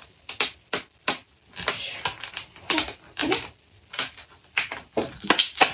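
Clear plastic lid of a takeout bowl being pried off by hand, clicking and crackling in a run of sharp, irregular snaps that are loudest near the end.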